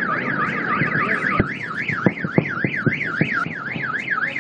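Car alarm wailing, its pitch sweeping up and down about three times a second, with a few short knocks about midway.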